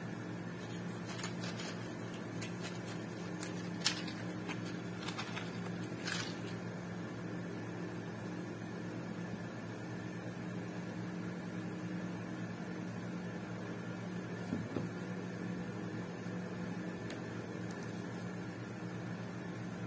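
Steady background machine hum, with a few light clicks and taps from hands handling things on a work table in the first six seconds or so and once more near the end.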